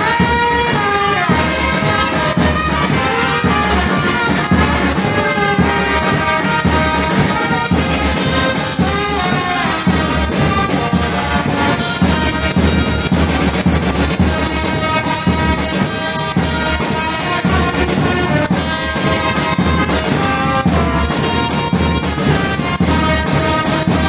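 A small brass band plays a continuous tune, with trumpets carrying the melody over marching drums.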